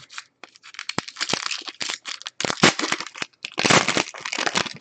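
Foil wrapper of a football trading card pack crinkling and tearing as it is opened by hand, a dense run of sharp crackles, loudest in the second half.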